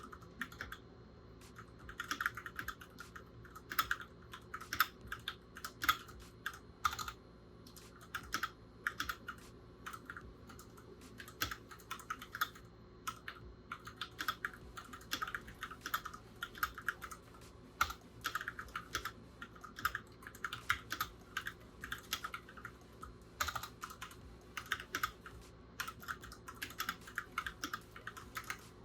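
Keychron K6 mechanical keyboard being typed on: quick runs of key clacks in bursts, broken by short pauses.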